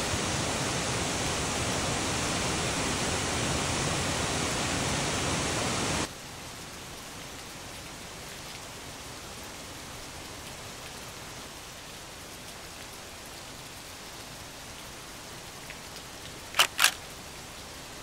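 Steady rushing of a mountain stream, which cuts off suddenly about six seconds in to a quieter, even hiss. Near the end come two sharp clicks in quick succession.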